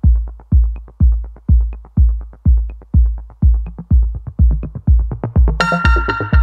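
Background electronic dance music: a heavy kick drum beating about twice a second with light hi-hat ticks between, and a bright synth chord coming in near the end.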